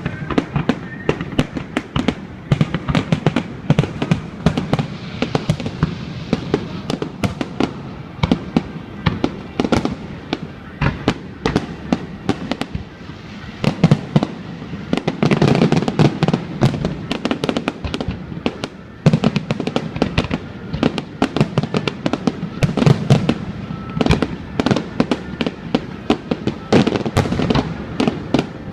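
Fireworks display: a continuous barrage of rapid bangs and crackles, with a denser volley of deep booms about halfway through.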